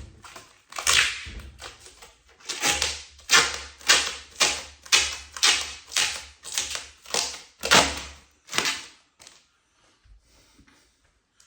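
Protective plastic film being ripped off a cabinet door, a quick run of short tearing pulls about two a second that stops about nine seconds in.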